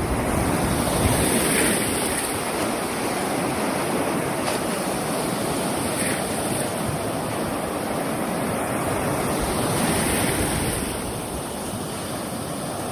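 Surf washing onto a beach in a steady rush, swelling a little about a second and a half in and again around ten seconds. Wind buffets the microphone with a low rumble.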